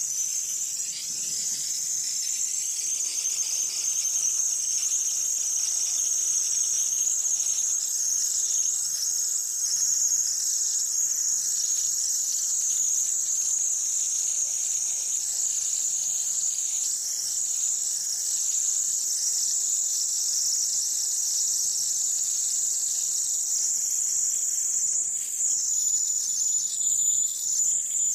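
Gas torch burning with a steady, high-pitched hiss while heating the work for silver soldering.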